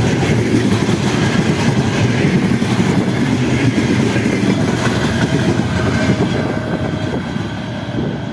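Covered hopper wagons of a freight train rolling past close by, their wheels running over the rails in a steady loud rumble that eases slightly near the end as the last wagon goes by.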